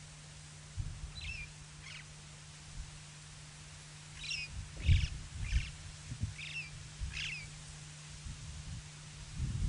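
Birds calling in short chirps, about seven calls spread through most of the stretch, over a steady low hum. Scattered low thumps, the loudest about halfway through.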